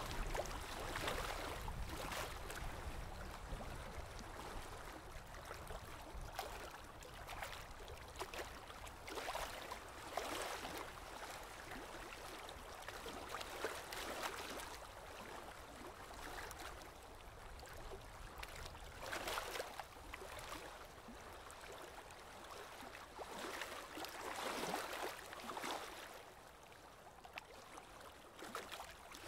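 Aquarium water trickling and gurgling faintly, with uneven swells every second or two.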